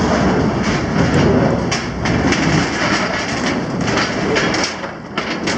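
A crowd of passengers walking through a boarding corridor: footsteps and rolling suitcase wheels making a steady, irregular clatter.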